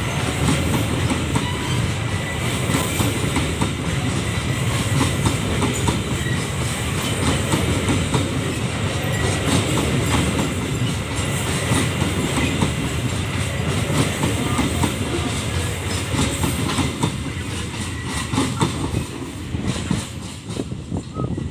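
Babaranjang coal train's wagons rolling past, wheels clattering rhythmically over the rail joints with a heavy rumble. The sound fades near the end.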